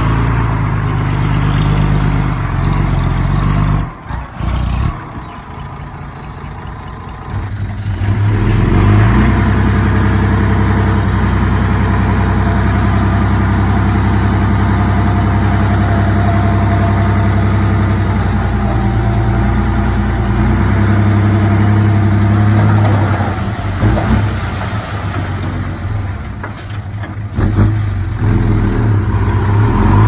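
Heavy diesel engine of earthmoving machinery running: it drops quieter for a few seconds, then comes back up and runs hard and steady under load. A few sharp knocks sound near the end.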